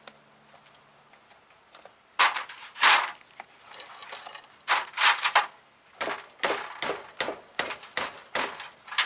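Near silence for about two seconds, then sharp clicks and knocks, first in clusters and then about twice a second, as a steering rack is pushed and worked into its mount under the car.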